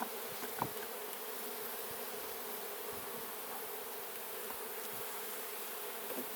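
Honey bees buzzing in a steady drone around an open hive, with a couple of light knocks from handling the wooden frames in the first second.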